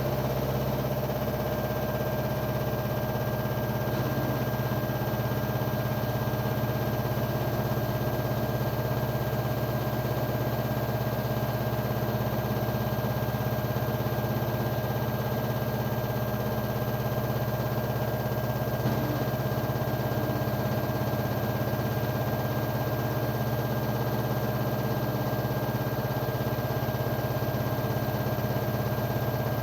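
LG washing machine spinning at 1000 rpm: a steady, even hum with a constant motor whine over it.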